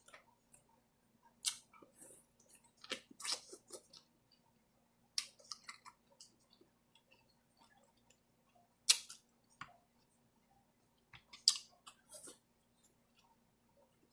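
Close-up eating sounds of a person eating a seafood boil: chewing and mouth smacks with short, sharp crackles and clicks scattered through, the loudest about 9 s and 11.5 s in.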